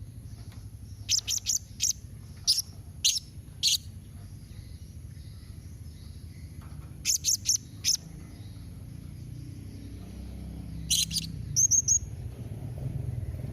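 Blue-crowned hanging parrot (serindit) calling: short, sharp, high chirps in quick runs, about seven in the first few seconds, four more about seven seconds in, and a last run near the end. A steady low hum lies underneath throughout.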